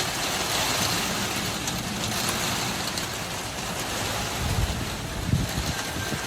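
Heavy storm rain pouring steadily, with wind buffeting the microphone in two low gusts near the end.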